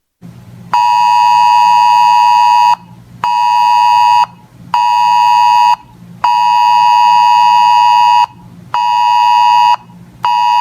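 Weather radio receiver sounding its alert for an incoming weather message: a loud, buzzy electronic tone near 1 kHz in a long-short-short pattern, played twice.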